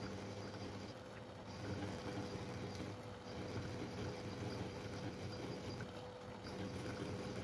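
Small metal lathe running while a twist drill fed from the tailstock drills a pilot hole into a steel workpiece: a steady low motor hum with a fainter steady whine above it.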